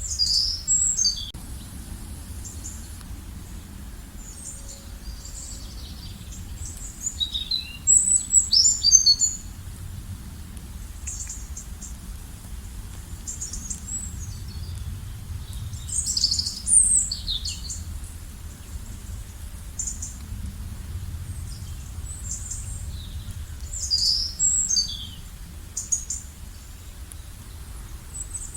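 Songbirds chirping in short bursts of high, falling notes, a burst about every eight seconds, over a steady low rumble.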